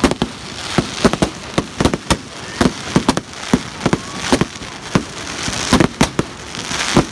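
Firecrackers going off close by in a rapid, irregular string of sharp bangs, several a second, with crackling and hiss between them.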